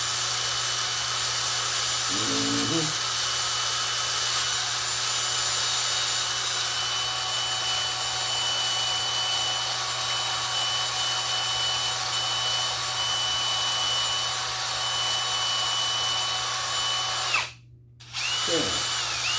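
Electric drill running steadily with a cleaning attachment scrubbing corrosion off a tractor battery's positive terminal. It stops suddenly near the end, then runs again briefly for about a second.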